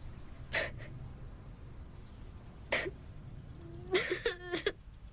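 A child sniffling twice, then a short whimpering sob about four seconds in.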